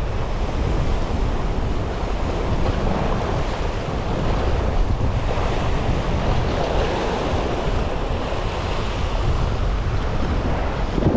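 Sea waves surging and breaking against a rock ledge, the wash swelling and easing, with wind buffeting the microphone.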